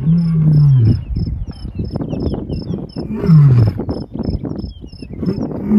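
Male lion roaring: long deep calls that slide down in pitch, one at the start and another about three seconds in, with a third beginning right at the end.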